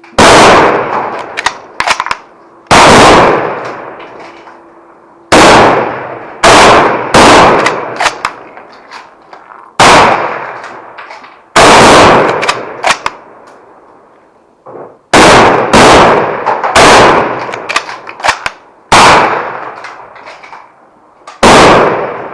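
Service rifles, a .303 Lee-Enfield No. 4 Mk 1* among them, firing a timed string from the firing line: sharp, loud shots every second or two, sometimes two close together, each with a ringing echo that fades. Lighter clicks can be heard between the shots.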